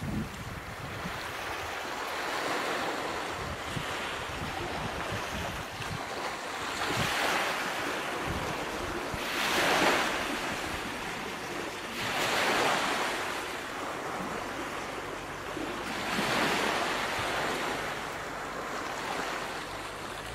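Ocean surf: waves washing in and drawing back, swelling and fading every few seconds over a steady hiss of wind and spray.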